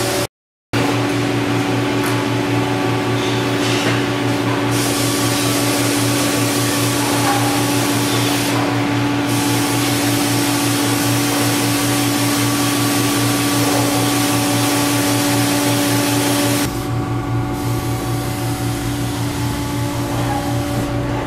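Steady mechanical whir with a constant low hum, like a motor running, that drops slightly in level about three-quarters of the way through.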